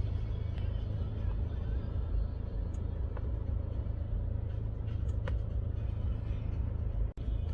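Steady low road rumble inside a moving Mercedes-Benz E-Class W212's cabin, with a couple of faint light clicks. The sound cuts out briefly near the end.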